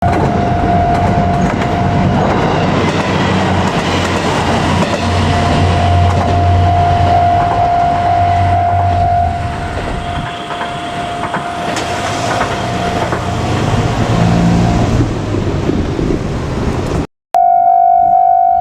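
JR Kyushu KiHa 200 diesel railcar passing over a level crossing: the diesel engine runs and the wheels clack and clatter on the rails, while the crossing's warning bell rings. After a sudden break near the end, the crossing bell rings on alone in an even, repeating pattern.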